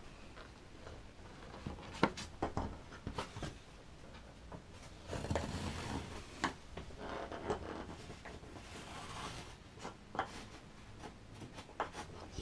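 Pencil scratching along the edge of a plastic fin box as it traces the box's outline onto a foam surfboard blank, with a few sharp clicks and taps from the box being handled. The longest scratching comes about five seconds in.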